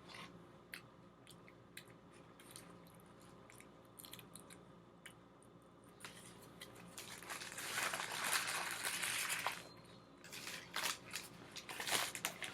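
Close-up eating sounds: quiet chewing with small mouth clicks. About halfway through, a paper takeout bag starts rustling and crinkling loudly for a couple of seconds, and it rustles again near the end.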